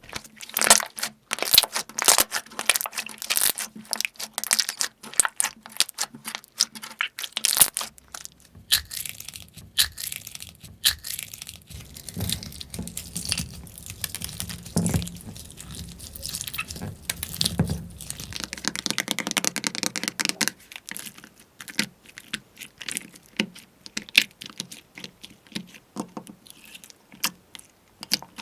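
Crunchy slime being squeezed and pulled by hand, giving a dense, irregular run of crackles and pops. Deeper squishing and pressing sounds join in from about 8 to 19 seconds in.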